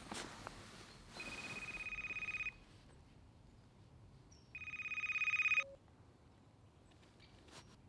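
Phone ringing: two trilling rings about two seconds apart, the second louder and growing as it goes.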